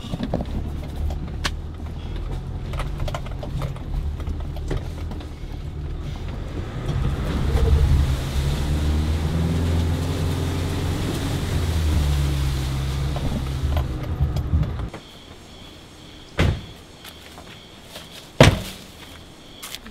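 Four-wheel-drive pickup driving over a rough forest track, heard from inside the cab: steady engine and cabin noise that grows louder and heavier in the middle as the engine works harder. It stops abruptly about three-quarters of the way in, and two sharp bangs follow about two seconds apart.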